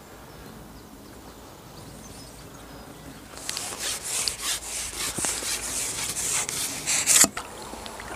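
Match-fishing pole being shipped back hand over hand: a run of scraping, rubbing strokes as the pole sections slide through the hands and over the kit. The strokes start about three and a half seconds in and stop sharply a little after seven seconds, as the pole is broken down.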